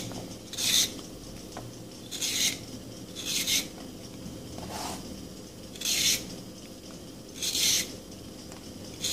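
Vegetable peeler scraping the skin off a raw carrot: about six separate short rasping strokes, roughly one every second or so.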